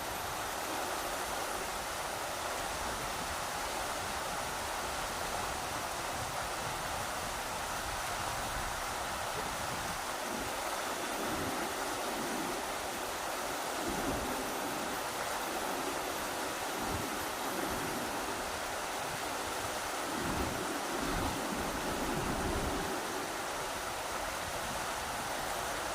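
Rushing river water, a steady dense rush, with strong wind gusting in low rumbles now and then from about ten seconds in.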